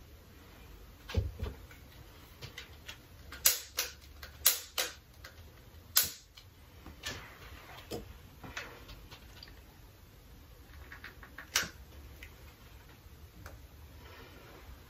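Quiet, irregular clicks and light knocks from handling things on a tabletop, including a long utility lighter being clicked to light a pillar candle. The sharpest clicks fall in the first half and one near the end.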